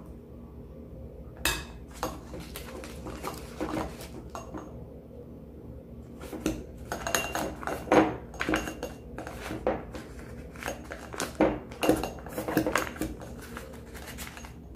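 A plastic spoon knocking and scraping against a glass bowl and glass as whipped cream is scooped into a piping bag: a run of scattered clicks and clinks that grows busier in the second half.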